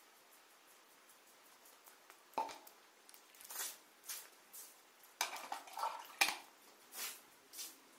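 A metal bucket clanking as it is handled on a concrete floor: a sharp clank about two and a half seconds in and another a little after six seconds, with short swishing and scuffing sounds between.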